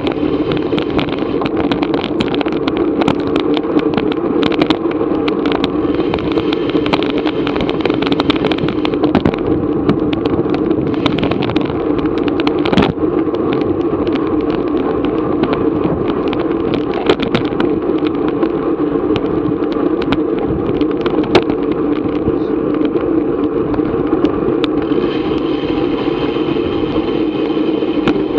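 Steady rush of wind and road noise on a bicycle-mounted action camera at race speed, with scattered sharp clicks and ticks.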